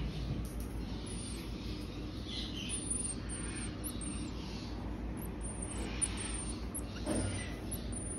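Baby marmoset calling: a string of very high-pitched, short chirps, about two or three a second.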